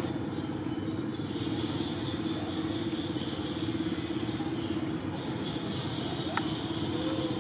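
A steady low engine drone, with a steady high buzz over it.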